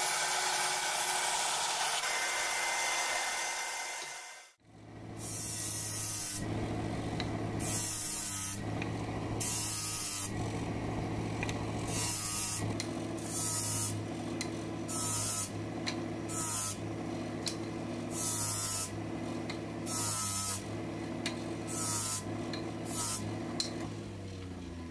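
A bandsaw running for the first four seconds or so. Then a sanding disc on a lathe hums steadily while wooden blocks are pressed against it in short repeated passes, over a dozen bursts of sanding noise about a second or so apart.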